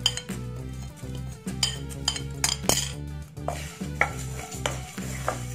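A spatula scraping and stirring dry whole spice seeds around a nonstick pan while they are dry-roasted, in a run of short scraping strokes with the seeds rattling against the pan. Soft background music plays underneath.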